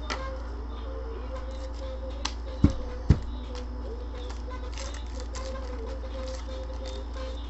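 Trading cards in plastic sleeves being handled on a table mat: light clicks and rustles, with two dull thumps about half a second apart a little under halfway through, over a steady low hum.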